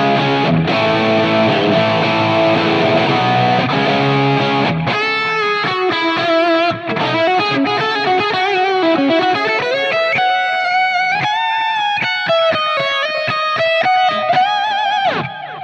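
Overdriven electric guitar through a Line 6 Helix running a capture of a 1966 Vox AC30 pushed by a TS-808 Tube Screamer: chords for about five seconds, then a single-note lead line with bends and vibrato.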